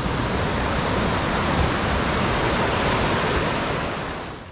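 Whitewater mountain creek rushing in a steady, dense wash of water noise, fading out near the end.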